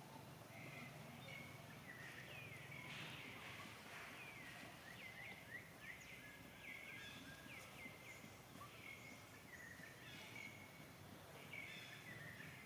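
Faint, high-pitched animal chirps: many short, falling squeaks in quick succession through most of the stretch, over a low background hiss.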